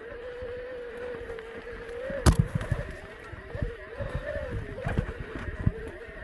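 Mountain e-bike rolling fast down a rocky dirt trail: rumbling tyre and trail noise with scattered knocks from the wheels striking roots and rocks, and one hard knock about two seconds in. A steady whine that wavers slightly in pitch runs under it.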